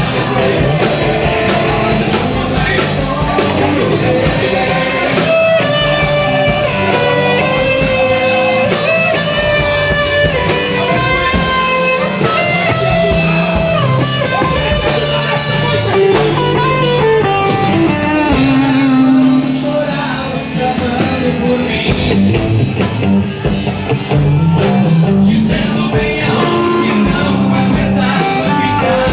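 Band playing an instrumental passage of a gospel song, a guitar carrying the melody.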